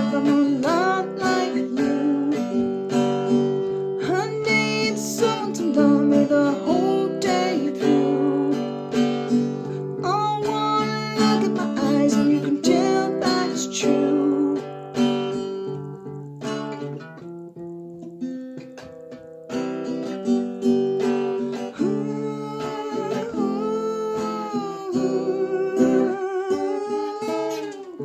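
Craven Model 265 Songbird acoustic tenor guitar playing an instrumental break of picked and strummed notes. About two-thirds of the way through it drops to a quieter, sparser passage before picking up again.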